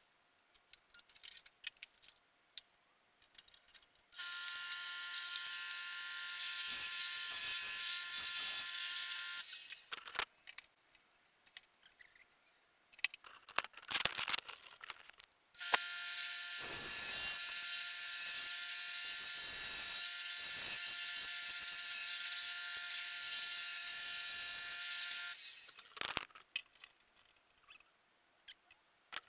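A small electric power tool's motor running steadily in two long spells, one of about five seconds and one of about ten, with scattered clicks and knocks of handling before, between and after.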